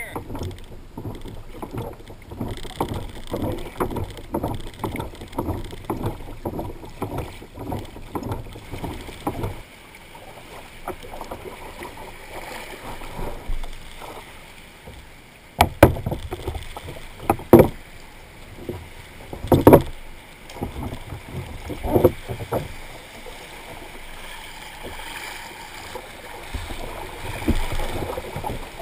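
Water sloshing and slapping against a plastic kayak hull under way in choppy water. Rapid irregular knocks come in the first third, and several loud splashes and knocks come around the middle as the kayak is paddled.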